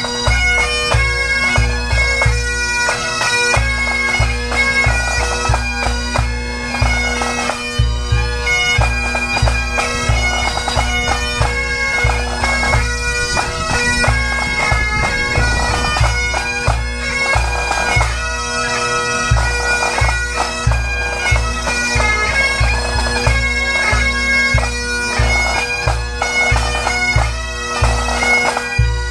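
Pipe band playing: Highland bagpipes sound their steady drones under the chanter melody, while snare drums and a bass drum beat time.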